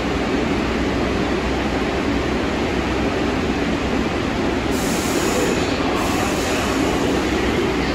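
New York City subway train running through the station, a loud, steady rumble of wheels and running gear on the rails, with a brief high hiss about five seconds in.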